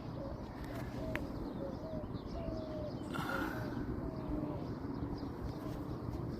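A bird cooing softly in a series of short repeated notes over a steady low rumble, with a brief rustle about three seconds in.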